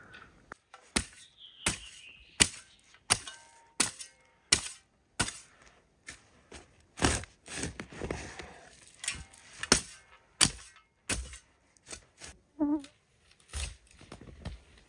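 Garden hoe chopping into loose, freshly dug soil: a sharp strike about every two-thirds of a second, starting about a second in.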